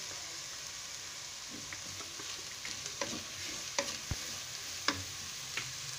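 Shredded chicken frying in oil in a metal pan with a steady sizzle, stirred with a wooden spatula that knocks and scrapes against the pan several times in the second half.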